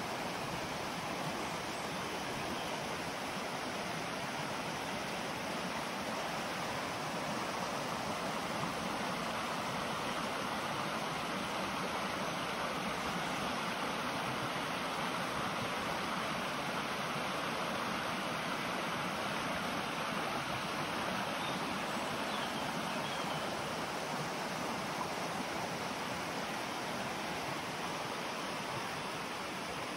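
Stream rushing over rocks in shallow rapids: a steady wash of water noise, a little fuller in the middle.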